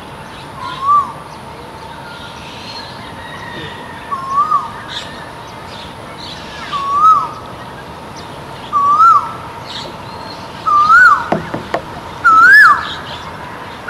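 Male Asian koel calling its repeated ko-el, six calls in a series, each higher in pitch and louder than the last and coming a little faster, the rising run typical of the koel's song.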